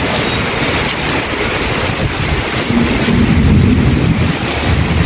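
Heavy monsoon rain pouring steadily, with strong wind gusting against the microphone as a low rumble that swells a little past the middle.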